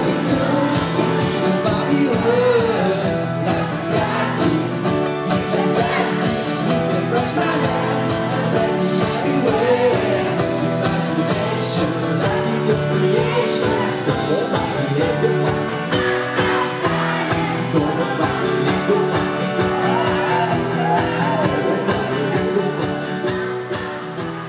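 A band playing a pop song with singing over a steady beat, beginning to fade out near the end.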